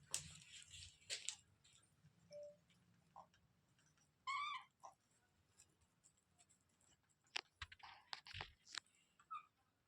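A ringneck parrot gives one short, wavering squawk about four seconds in, with faint scattered clicks and scratching before and after.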